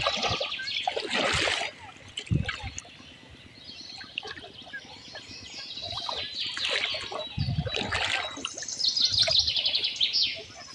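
Water splashing and swishing as legs and a push net move through shallow river water, with birds chirping and a fast high trill repeating several times, strongest near the start and near the end.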